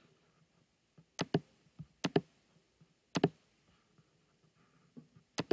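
Computer mouse clicks: a series of sharp clicks about once a second, several in quick pairs like double-clicks.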